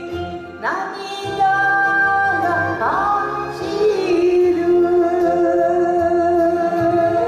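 A woman singing an enka ballad into a microphone over instrumental backing music, with long held notes.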